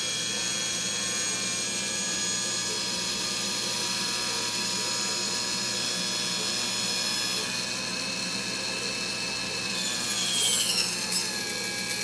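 Electric motor and hydraulic pump of a Showa power tilt-and-trim unit from a 2000 Evinrude 70 hp outboard running steadily on the bench and driving the rams down. Its whine shifts in pitch near the end.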